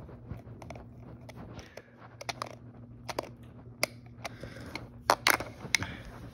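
Close handling noise: irregular clicks, taps and rustles of a hand moving right at the microphone, the loudest cluster about five seconds in, over a low steady hum.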